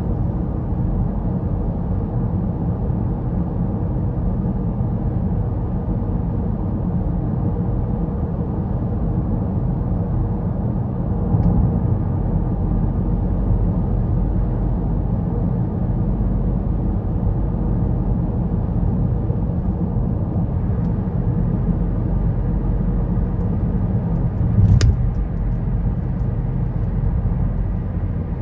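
Steady low rumble of a car's tyres and engine heard from inside the cabin while cruising on a highway. There is one brief sharp knock near the end.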